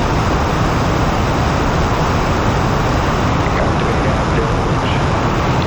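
NASA Space Launch System five-segment solid rocket booster firing on a horizontal static test stand: a loud, steady rushing noise that does not change.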